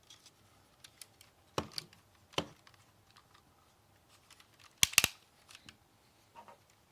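Hard plastic parts of a transforming robot figure clicking and snapping as they are handled and pressed into place, with a few scattered clicks and a sharp double snap about five seconds in.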